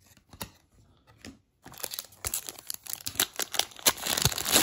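A pack of 1998 Collector's Choice baseball cards being opened by hand: a few light handling clicks, then dense crinkling and tearing of the wrapper from a little under two seconds in.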